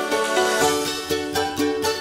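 Background music: a bright tune on a plucked-string instrument in quick, even notes, with a bass line coming in about half a second in.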